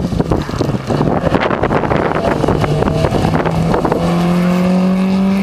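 Rally car engine approaching, then passing close by under hard acceleration about four seconds in, its note climbing steadily. Wind buffets the microphone.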